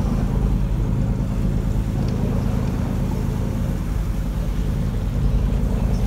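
A boat's engine running steadily while the boat is under way, a low, even drone.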